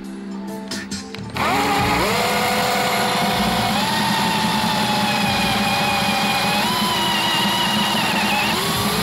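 Background music, then about a second and a half in an electric drill spins up with a rising whine and runs steadily as it drills out a rivet in a metal lock plate, its pitch stepping up slightly twice. It stops abruptly at the end.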